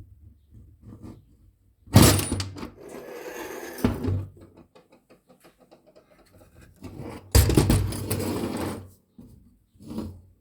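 Toyota Land Cruiser Prado 150 steering column parts being pulled apart by hand, metal on metal. There are two longer rushes of noise about two and seven seconds in and a knock near four seconds, with light clicking and rattling between them.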